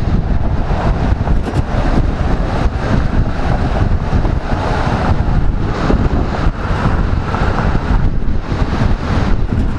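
Wind buffeting a helmet-mounted microphone on a moving motorcycle, a loud, steady rush, with the bike's engine running underneath.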